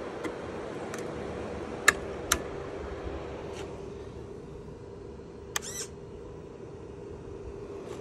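Steady hum from the remote-control lawnmower's machinery, with several sharp clicks, the two loudest close together about two seconds in, and a brief warbling chirp about five and a half seconds in.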